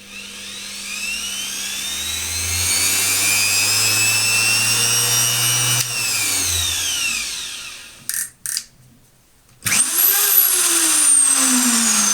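Einhell TH-RO 1100 E variable-speed electric router run unloaded, being tried at its lower speed settings. The motor whine spins up and runs, winds down about seven seconds in, and two switch clicks follow. It starts again with a quick rise in pitch, then a whine that falls steadily in pitch.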